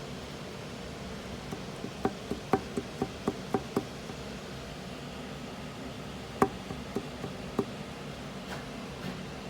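GMC Terrain's 3.0 V6 running with sharp, irregular knocks over its steady hum: a quick cluster of about eight, then three more after a pause. This is the knock that appears once the engine is warmed up.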